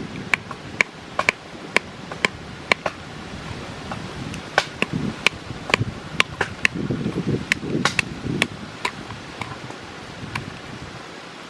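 A knife chopping on a cutting board: about twenty sharp, irregular strokes, roughly two a second, thinning out near the end.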